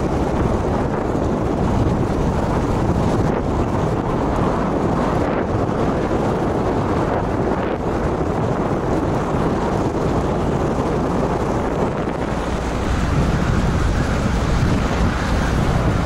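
Wind buffeting the microphone: a loud, steady, rumbling rush that swells and eases.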